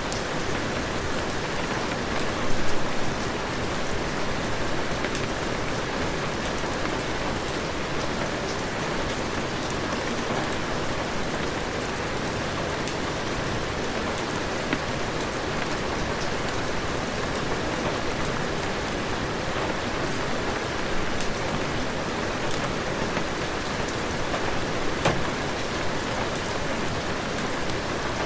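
Heavy rain falling steadily, a dense even hiss with many sharp ticks of single drops. There are brief louder swells about two and a half seconds in and near the end.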